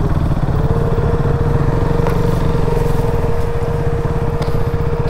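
KTM Duke's single-cylinder engine running steadily at trail pace. A steady whine joins about half a second in and holds.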